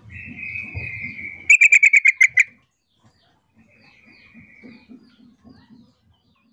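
Female yellow-vented bulbul (trucukan) calling to males: a harsh buzzy note, then a fast run of about nine loud, sharp notes, then a second, shorter buzzy note. A low rumble runs under the first part.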